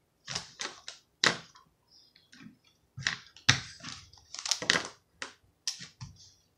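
Plastic marker caps being pulled off and pressed on, and markers and caps set down on a table: an irregular run of about a dozen sharp clicks and taps.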